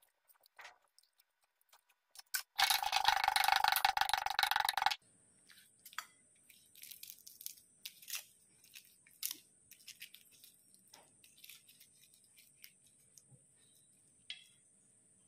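Dry papery shallot skin being peeled with a small knife: small scattered crackles and tearing sounds. About two and a half seconds in comes a loud crackling rustle lasting about two seconds, and after it a faint steady high whine.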